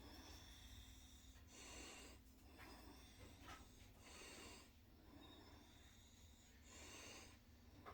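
Near silence: room tone with faint soft swishes every second or two.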